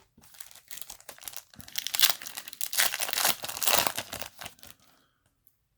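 Foil Yu-Gi-Oh! booster pack wrapper being torn open and crinkled by hand, a dense irregular crackling that stops about five seconds in.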